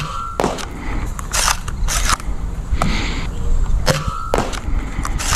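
Sharp knocks and clicks as foam darts from a ZWQ S200 spring-powered Nerf pistol are fired and strike a wooden target board, over a steady low rumble.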